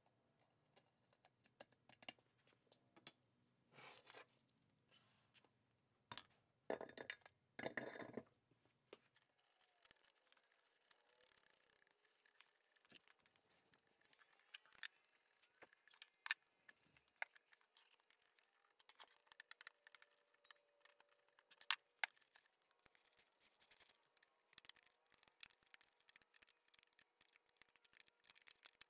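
Faint, scattered metallic clicks, clinks and scrapes of air compressor pump parts being handled and fitted together on a workbench during reassembly, a few sharper clinks past the middle.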